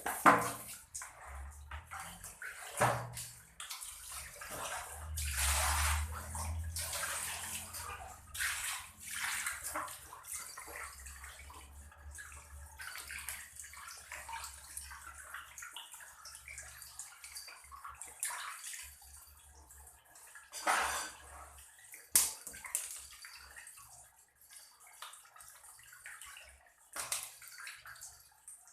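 Water sloshing and splashing in a basin as scaled fish are washed by hand, in irregular swishes with a few louder splashes.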